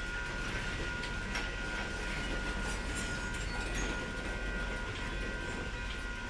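Cars of a ballast work train rolling past in a steady rumble, with a few faint wheel knocks over the rails.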